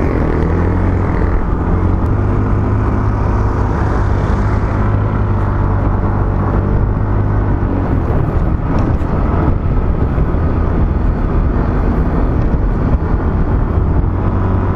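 Motorcycle engine running steadily while riding, a continuous drone mixed with wind and road rush.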